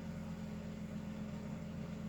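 A steady low hum under an even faint hiss, unchanging throughout, with no breathing or snoring rhythm standing out.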